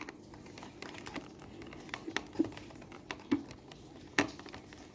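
Screwdriver turning the screw that holds a die-cast model car to its cardboard packaging base, making faint, irregular small clicks and scrapes against the plastic mount and cardboard, with a louder click about four seconds in.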